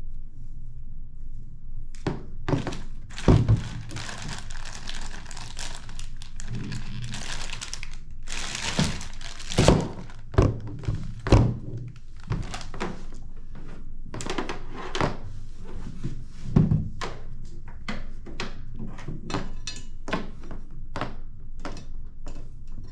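Handling of a computer monitor and its cables on a desk: a string of thunks, knocks and clicks, with rustling over the first several seconds and a few louder thuds.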